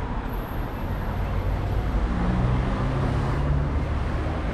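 City street traffic: a steady wash of passing vehicles with a low engine drone in the middle.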